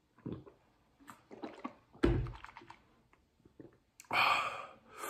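Gulping water from a plastic bottle, with small clicks and crinkles from the bottle, and a thump about two seconds in. Then a heavy breath out about four seconds in and shorter breaths near the end, as he pants from the burn of the hot sauce.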